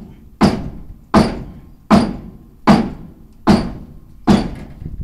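Hammer blows on metal as a truck bumper is driven into place: six evenly spaced strikes, about one every 0.8 seconds, each with a short ring.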